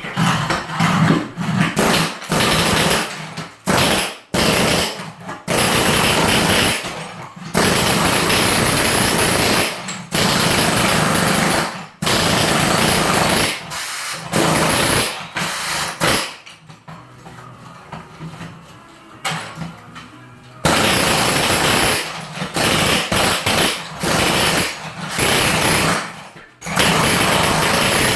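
Handheld tile vibrator buzzing in repeated spells of one to four seconds, switched on and off, as tiles are vibrated into their adhesive to drive out trapped air.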